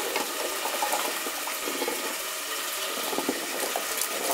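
Water sloshing and splashing in a metal pot as chopped vegetable pieces are tipped in from a metal tray to be washed.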